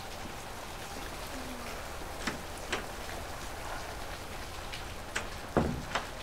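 Steady rain falling, heard through an open doorway, with a few sharp knocks, the loudest about five and a half seconds in.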